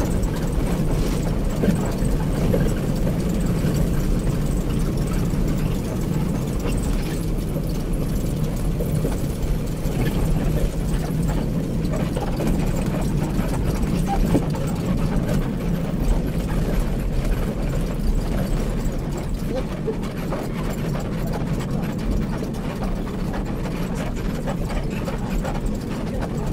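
Daewoo BS106 bus's diesel engine running steadily with road noise as the bus drives along, heard from inside the cabin as a continuous low drone.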